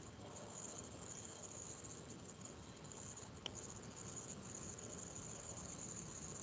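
Faint background noise with a high, wavering hiss, and a single computer-mouse click about three and a half seconds in.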